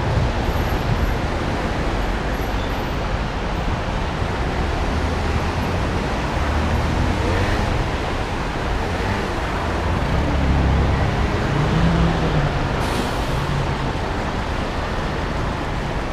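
City road traffic heard from a bicycle: a steady rush of wind and tyre noise, with motor vehicle engines running close by. A low engine rumble swells about ten seconds in, and a brief hiss comes a little later.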